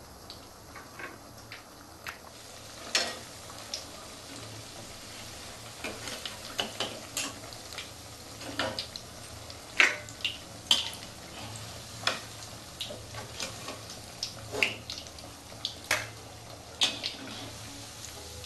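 Hot oil sizzling steadily in a karahi as onion pakoras deep-fry, with many sharp, irregular clinks and scrapes of a metal spatula against the pan as the half-fried pakoras are lifted out.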